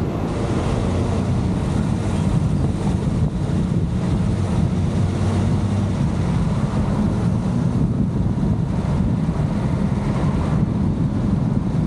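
Wind buffeting a microphone mounted outside a moving car, over a steady low rumble of the car's engine and tyres.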